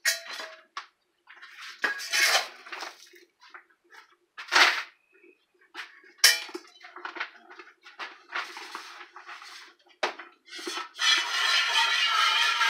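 Stainless steel pail and bowl clanking and knocking as they are handled, with a few sharp knocks. About eleven seconds in, hand milking begins: squirts of goat milk hiss steadily into a stainless steel pail.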